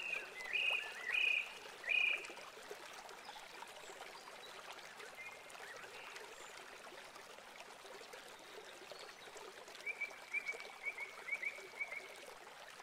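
Shallow river water rushing steadily over rocks, with high chirping calls: three or four in the first two seconds and a quick run of them near the end.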